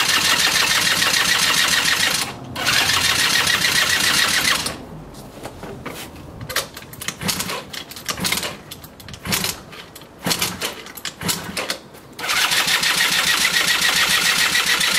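A Yamaha Jog CG50 50cc two-stroke scooter engine being cranked over by its starter in three bursts of two to three seconds each, a fast whirring with rapid ticking, and it never fires: a hard-starting engine. Between the bursts come scattered knocks and clicks.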